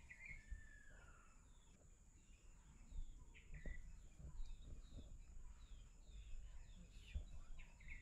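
Faint outdoor ambience: small birds chirping over and over in short falling notes over a steady high-pitched hum, with a few soft low thumps in the second half.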